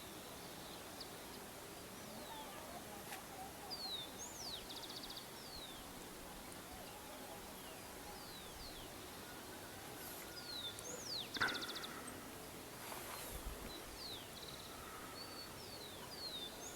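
A songbird singing the same short phrase over and over, about every six seconds: a few quick downward-slurred whistles that end in a fast buzzy trill. A single short, sharp sound stands out as the loudest moment, a little past the middle.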